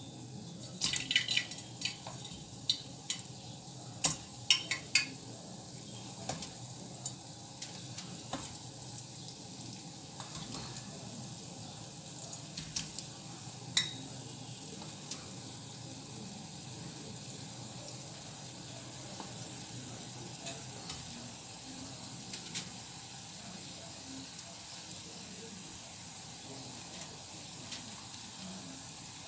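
Zalabia batter frying in a pan of oil, a steady soft sizzle, the dough balls getting their first frying in only barely hot oil. Sharp clicks and taps come often in the first fourteen seconds and then die away.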